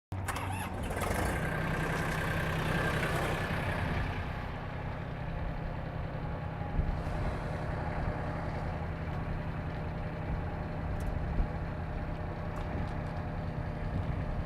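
Mahindra Max compact tractor's diesel engine running steadily, with a higher whine over it for the first few seconds.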